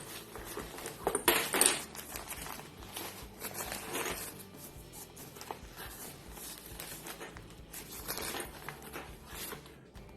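Plastic packaging rustling and crinkling as a survival tent kit is opened and its contents handled, with louder rustles about one and a half seconds in.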